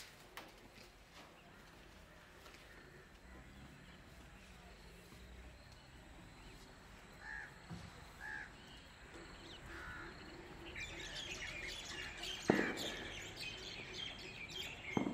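Faint outdoor ambience with birds calling: three short calls around the middle, then busier, higher-pitched bird calls over the last few seconds. A single sharp knock comes late on.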